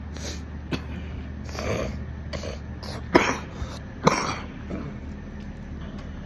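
A man coughing and clearing his throat in a string of short, rough bursts, the two sharpest about three and four seconds in, over a steady low hum.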